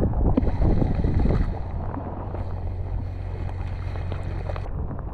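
Wind buffeting the microphone in a steady low rumble, with hissing stretches and scattered clicks and rustles from hands handling a fishing rod and a soft-plastic lure close to the microphone.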